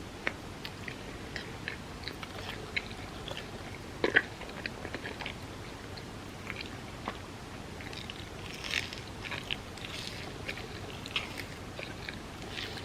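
Close-miked eating sounds: chewing with many small wet mouth clicks, and a louder bite about four seconds in.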